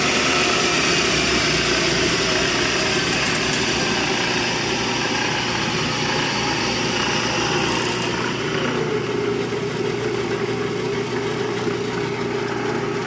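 Rockwell Model 20 drill press running, its three-phase motor and drive making a steady mechanical hum with a high hiss. About eight seconds in, a whine glides down in pitch and the hiss fades, leaving a slightly quieter hum.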